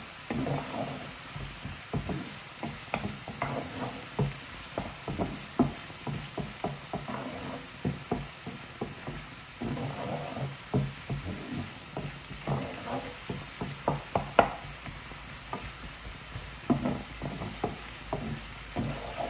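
Wooden spatula stirring and scraping chopped onion, green chilli and garlic-ginger paste around a non-stick frying pan, with irregular knocks and scrapes of the spatula on the pan, one sharper knock a little past two-thirds of the way through. Under it the sunflower oil sizzles gently over medium-low heat.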